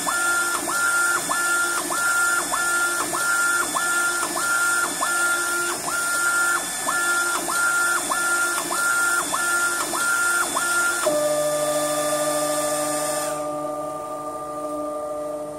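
UV LED flatbed printer printing, its print carriage shuttling back and forth with a motor whine that dips and returns about twice a second over a steady hiss. About eleven seconds in the passes stop and a steady hum remains; the hiss cuts off a couple of seconds later as the print job ends.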